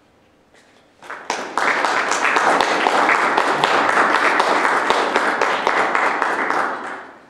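Audience applauding, starting about a second in, rising quickly to a steady level and dying away near the end.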